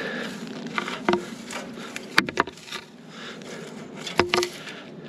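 Footsteps crunching and rustling through dry grass and brush on a hillside, with a few sharp snaps: one about a second in, a quick cluster a little after two seconds, and another a little after four seconds.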